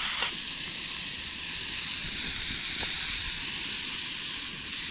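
Beef steaks and onions frying in a pan over a wood fire, a steady sizzling hiss that drops in level just after the start.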